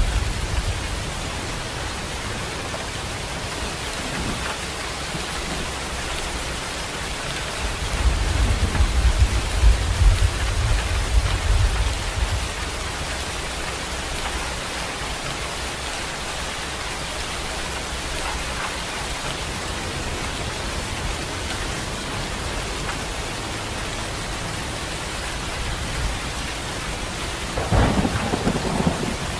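Steady rain falling, with rolling rumbles of thunder: a long one about a third of the way through and another near the end.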